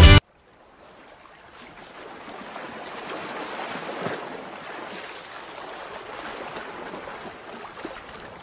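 Rock music cuts off abruptly at the very start, then a soft rushing sound of waves swells over about three seconds, holds, and slowly fades away near the end.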